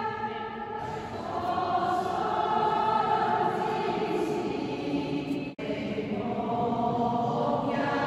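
A group of voices singing a hymn in worship, with long held notes. About five and a half seconds in, the sound cuts out for an instant and the singing carries on.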